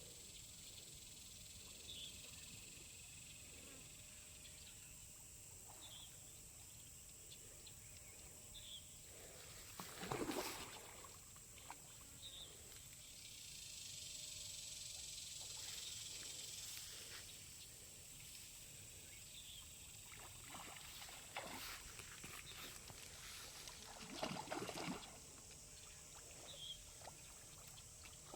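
Faint outdoor ambience: a steady high hiss with short faint chirps every few seconds. It is broken by bursts of water splashing about ten seconds in and again near the end, from a hooked matalote (sucker fish) fighting at the surface.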